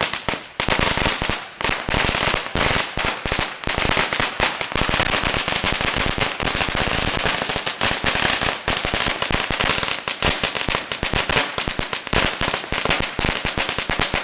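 A 10,000-round string of firecrackers (an 8,000-round roll tied to a 2,000-round roll) going off in a continuous rapid crackle of bangs, with a brief pause about half a second in.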